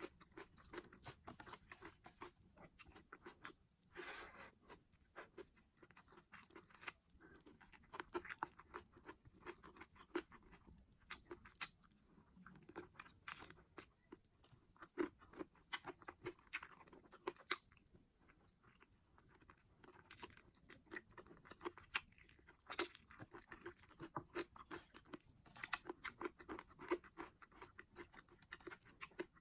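A person chewing and eating food close to the microphone: a steady run of irregular wet mouth clicks and crunches, with a longer crunching burst about four seconds in.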